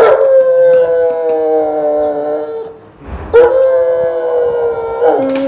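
A German Shepherd dog howling in two long cries, each dropping quickly in pitch at the onset and then held steady, with a short gap between them.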